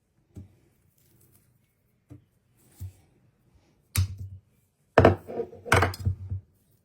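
Knife chopping on a cutting board: a few light, scattered knocks, then a sharp strike and two louder runs of strokes near the end.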